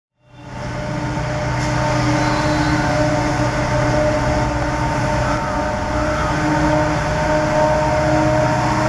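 WDP4 diesel-electric locomotive's EMD two-stroke engine running under load as it hauls a passenger train: a steady drone with a low hum and several held tones above it.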